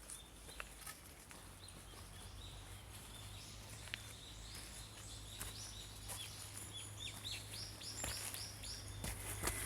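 Small songbirds chirping: runs of short, quickly repeated falling notes, busiest in the second half, with a few sharp clicks and a steady low hum underneath.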